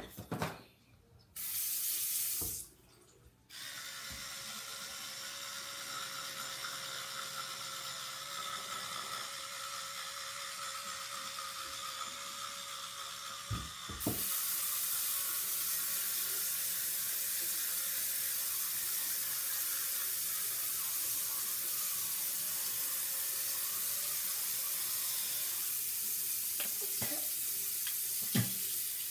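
Bathroom sink tap running into the basin: turned on briefly, then on again for good a few seconds in and opened up to a fuller flow about halfway through, with a faint steady whistle in the flow and a few light knocks.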